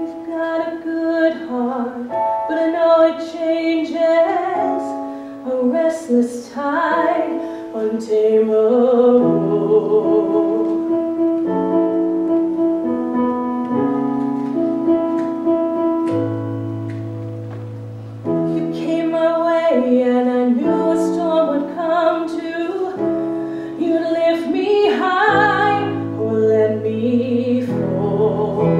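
Slow instrumental introduction played on piano and keyboard: held chords that change every couple of seconds, with stretches of quicker notes between them.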